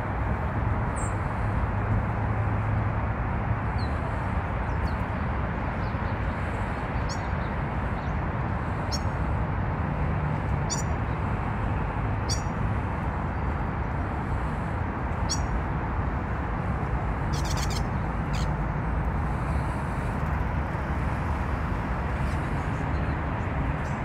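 Small birds chirping now and then, single short high chirps every second or two with a quick run of several about three quarters of the way through, over a steady low outdoor rumble.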